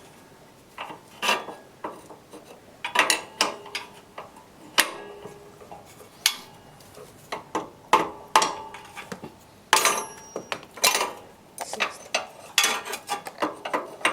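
Hand tools knocking and clinking on metal while a nut low on the motorcycle's rear wheel is being tightened: irregular sharp knocks, some in quick clusters of two or three, a few ringing briefly.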